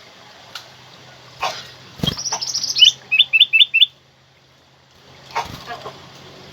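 Kutilang emas (black-crested bulbul) singing: a quick run of high notes about two seconds in, then four louder, clear whistled notes, the whole phrase lasting about two seconds. A dull thump comes just before the song, and a faint steady hum runs underneath.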